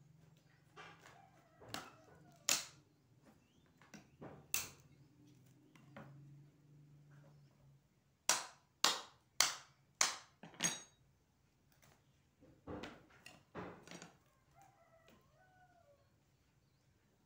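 Kitchen knife knocking against a coconut half as the flesh is cut and pried out of the shell: scattered sharp knocks, with a run of five quick strikes a little over half a second apart near the middle.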